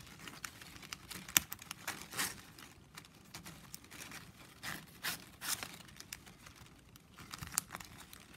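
9 mm plastic strapping band crinkling and rustling as it is handled and threaded through the weave, with scattered sharp clicks and short scraping rustles; the loudest click comes about a second and a half in.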